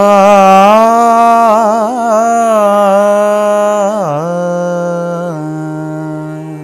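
A man singing without words in Indian classical style: a slow melodic passage of quick ornamental turns and long held notes over a steady drone. The voice drops to a lower held note and stops near the end.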